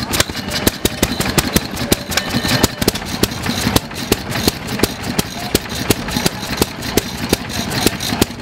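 Vintage stationary engines running: a rapid, uneven train of sharp pops and knocks over a steady mechanical clatter.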